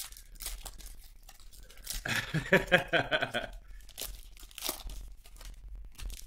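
A foil trading-card pack wrapper being torn open by hand and crinkled, in short crackles with a longer, louder stretch of tearing about two seconds in.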